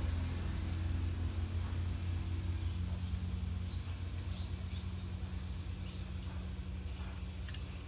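A low, steady engine or motor rumble with a hum, and a few faint small clicks.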